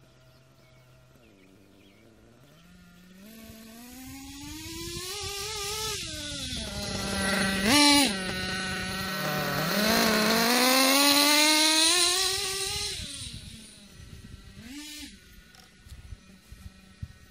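Kyosho KE25 nitro engine in an RC truggy on a break-in run: it idles, then climbs steeply in pitch through a long pass, falls back, gives one short sharp rev about eight seconds in (the loudest moment), climbs through a second pass, blips once more and drops back to idle. The engine is running rich for the break-in.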